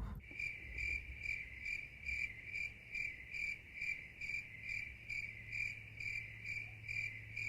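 A steady, high-pitched chirp repeating about two and a half times a second, over a low steady hum.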